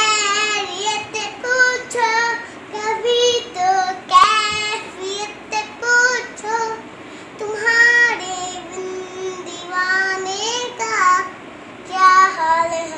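A three-year-old girl singing a Hindi song solo, in phrases of held notes with pitch glides and short pauses for breath between them.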